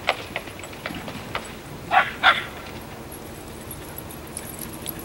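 A dog barking twice in quick succession, two short sharp barks about a third of a second apart.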